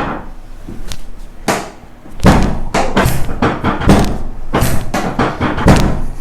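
A rapid series of thumps and knocks, about three a second, from a chiropractor's hands-on adjustment of the back on a treatment table. They come thicker and louder from about two seconds in.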